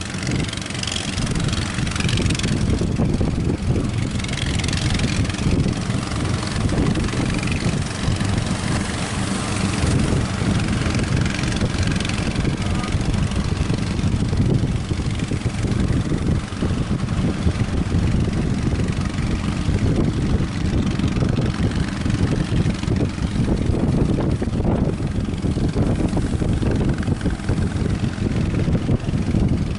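Speedboat's outboard engine running steadily, mixed with the rush of strong wind and waves.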